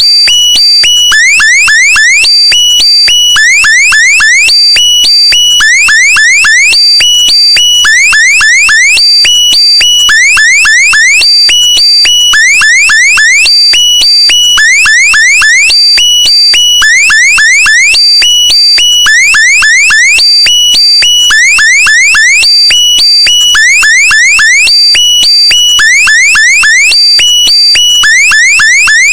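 Electronic alarm sound effect, looping: clusters of quick rising chirps repeat about once a second, loud and unbroken.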